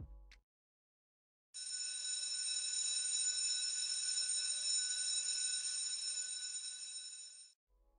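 Electric school bell ringing steadily, starting about a second and a half in and cutting off near the end after some six seconds: the bell marking the end of a class period.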